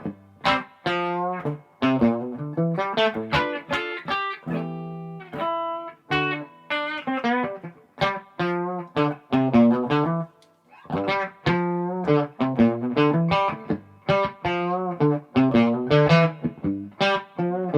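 Gibson SG electric guitar played with quick picked notes and chords, with one longer ringing chord about four to six seconds in.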